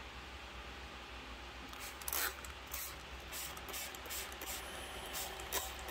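Faint, scattered rustling and handling noises over a low, steady hum.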